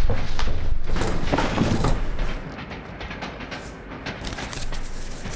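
Railway carriage running along the track: a low rumble with clicks and creaks. The rumble drops away a little over two seconds in, leaving fainter clicking and creaking.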